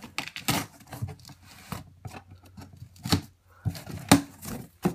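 Shipping package being opened and handled by hand: irregular rustling, tearing and crinkling of the packaging, with a few sharper snaps, the loudest about three and about four seconds in.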